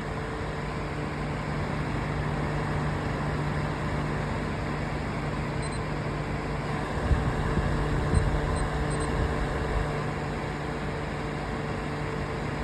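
Iris Woozoo air circulator fan running on its top speed, speed 5: a steady rush of air with a low, even motor hum. There are a few faint low knocks about halfway through.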